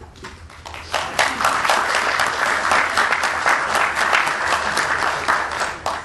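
Room full of people applauding: a few claps at first, swelling to full applause about a second in, then stopping abruptly near the end.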